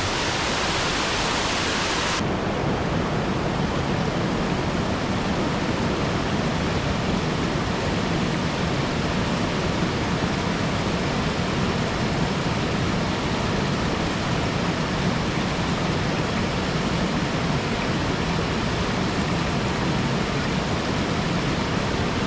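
Steady rush of flowing water from a waterfall and stream. The hiss is brighter for about the first two seconds, then turns abruptly duller and carries on unchanged.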